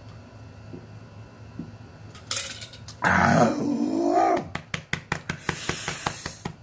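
A man gulping a drink, then a sharp gasping breath and a loud, wavering, strained groan as the drink hits him, followed by a quick run of short knocks, about five a second, like a hand patting his chest.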